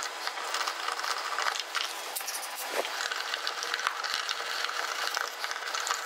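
Hand screwdriver backing out the screws of a wall switch's cover plate and mounting strap: scattered small clicks and scrapes of the tip working the screws, with the plastic plate coming away.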